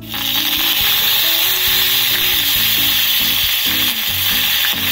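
Freshly washed curry leaves hitting hot oil in a tadka of cumin, mustard seeds and urad dal: a loud, steady sizzle that starts suddenly and holds.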